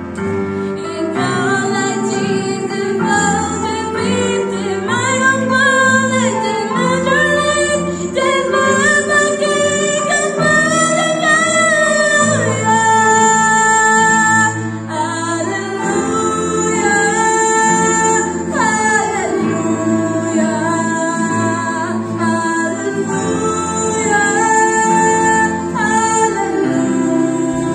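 A girl's solo voice singing a song into a handheld microphone, with held, sliding notes, over a musical accompaniment.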